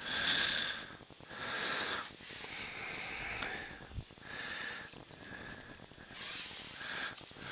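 A person breathing in and out through the nose close to the microphone: short hissing breaths, about one a second.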